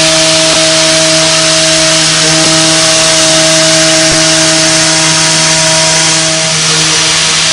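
CNC milling machine cutting with an end mill: a steady whine of several held tones over a loud, continuous hiss of the cut, the tone changing slightly about six seconds in.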